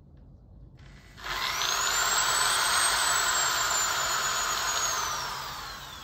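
Handheld corded power tool spinning up about a second in and running steadily. Its high motor whine climbs, then slowly sags in pitch.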